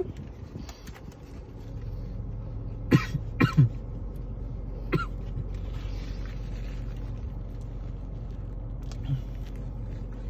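A man coughs while eating: two sharp coughs close together about three seconds in, and one more about five seconds in. A steady low hum of the car runs underneath.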